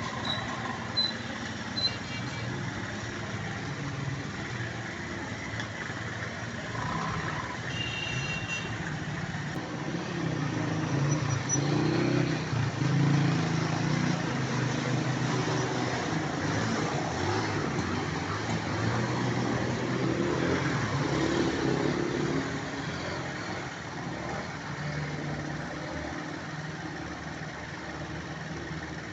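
Motor vehicle engines moving through a flooded street over a steady wash of noise, loudest around the middle and fading toward the end. A few short high beeps near the start.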